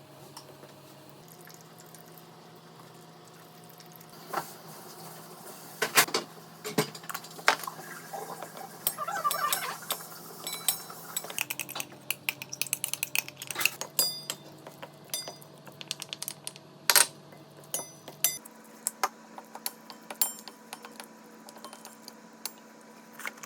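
Kitchen utensils clinking and knocking against a bowl and dishes in irregular clicks while the seasoned cucumber salad is mixed and plated, starting about four seconds in. The sharpest knocks come around six and seventeen seconds.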